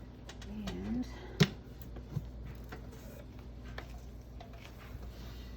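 Handling noises as the rock tumbler's parts are fitted: scattered light clicks and one sharp knock about a second and a half in, over a faint steady hum. A short hummed voice sound comes just before the knock.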